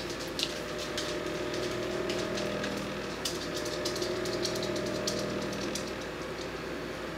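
A steady machine hum with scattered light ticks and taps over it.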